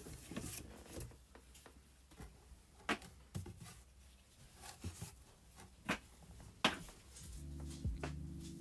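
Scattered soft clicks, knocks and rustles of wheel packaging being handled and opened. Music comes in about three-quarters of the way through.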